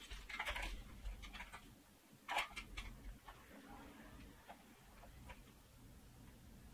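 Small clicks and rattles of power-cable connectors being handled and plugged in on an open metal mining-rig frame, with a few rustles of cable and a sharper click about two and a half seconds in.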